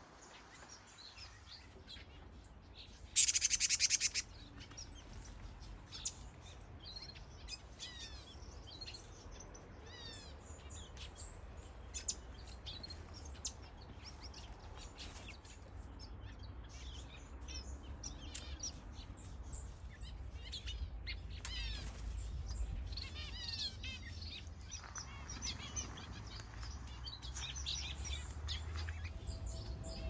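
Mixed aviary finches and waxbills chirping and calling, many short, high chirps overlapping throughout. About three seconds in, a loud buzzing rattle lasts about a second. A low rumble runs underneath.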